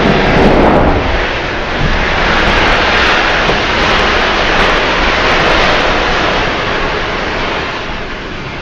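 Bundled matchsticks igniting one after another around a pan of potatoes, a loud continuous fizzing hiss of burning match heads and flame. It swells about two seconds in and eases off near the end.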